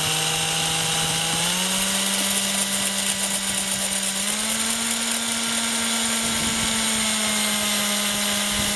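Electric drill with a 4 mm bit running steadily while drilling out a rusted, seized screw head in a licence plate. The motor whine steps up in pitch twice as the drill speeds up.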